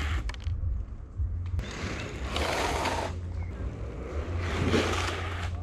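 Inline skate wheels scraping across asphalt in braking slides: a long hissing skid about two seconds in, then a shorter one near the end, over a steady low rumble.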